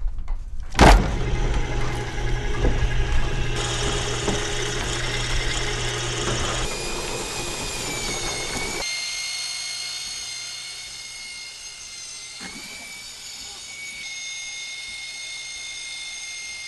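An electric motor switches on about a second in and drives a rotating drum mixer for straw and clay slip, running with a steady hum and whine. After about nine seconds it gives way to a quieter, steady high-pitched whine.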